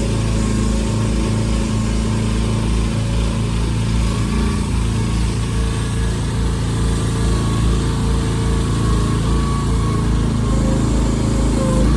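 Small engine of a Vicsec VC13 mini excavator running steadily, with a faint whine that comes and goes above the engine note.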